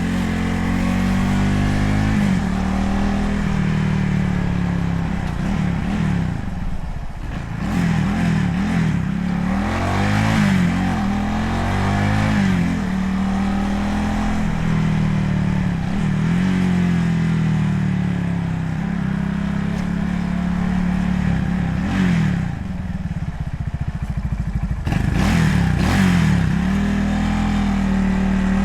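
Motorcycle engine running at speed, its pitch rising and falling repeatedly as the throttle opens and closes and it shifts gears, over road and wind noise heard from a handlebar-mounted camera with wind reduction on.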